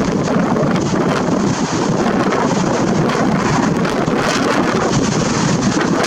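Storm-force wind blowing hard across the microphone in a loud, steady rush that swells and eases with the gusts.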